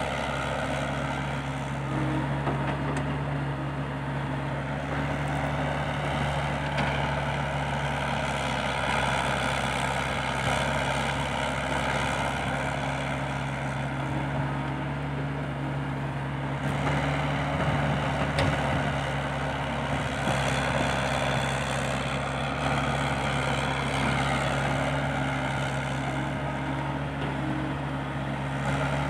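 Diesel engines running steadily as a Komatsu hydraulic excavator digs and loads soil into a six-wheel dump truck standing beside it, with a steady low engine hum throughout.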